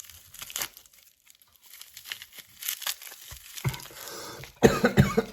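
A man coughing several times near the end, after a few light clicks and rustles of items being handled.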